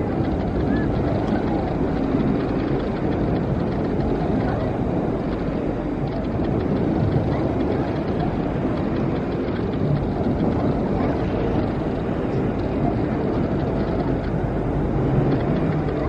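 Steady rumbling wash of a wave pool, water churning and lapping around inner tubes, with a faint murmur of people's voices underneath.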